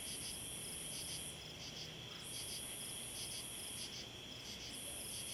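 Nighttime insect chorus: crickets trilling steadily, with a much higher insect buzz that comes in long stretches with gaps about every three seconds, and quick chirps repeating throughout.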